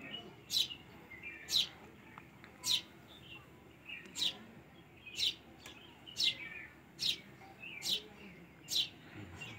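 A small bird chirping over and over: short, sharp, high chirps about once a second.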